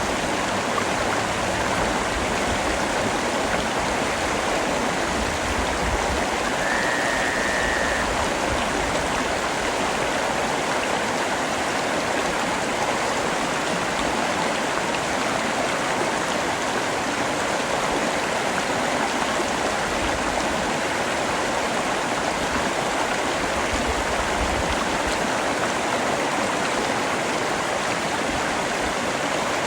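Steady rain falling, an even unbroken hiss. A short, thin high tone sounds briefly about seven seconds in.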